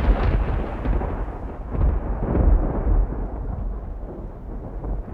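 A deep rolling rumble like thunder, swelling again two to three seconds in and then slowly dying away, growing duller as it fades.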